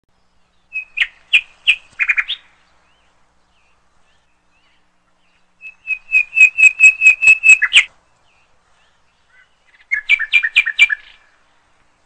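Chukar partridge calling in three bouts of rapid, repeated sharp 'chuk' notes. The middle bout is the longest, about two seconds of quick, even notes at roughly five a second.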